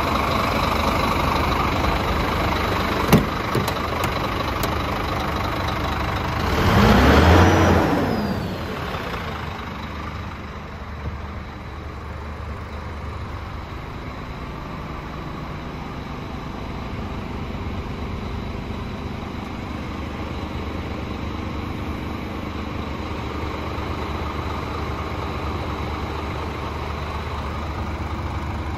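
Scania R400 truck's 400 hp Euro 5 turbo diesel idling steadily, with a sharp click about three seconds in. About seven seconds in, the engine is revved once, rising and falling back to idle. From about ten seconds on the idle is quieter.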